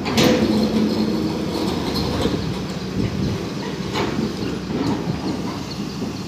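Hyundai excavator's diesel engine running with a steady low rumble and hum, with a few sharp knocks, one right at the start and two more a little after halfway, as the arm works among the concrete pile heads.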